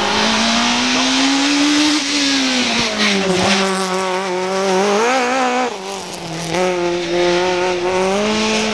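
A small hatchback slalom racing car's engine running hard through the course, its pitch holding high, then dropping and climbing again as the driver lifts off and accelerates between the bends. Its tyres squeal on the asphalt.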